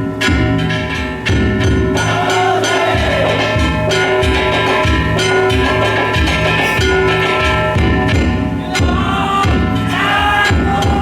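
Danjiri festival music: a taiko drum beating at a steady pace under the continuous ringing of the float's gongs. From about two seconds in, voices call out over the drumming.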